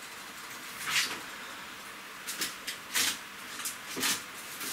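Off-camera kitchen handling noises: about five short rustles and knocks spread over a few seconds, as things are moved about on the counter.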